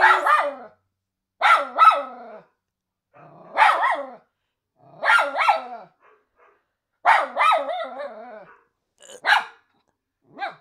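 A dog barking and yelping in about seven short bouts, the pitch bending up and down within each bout.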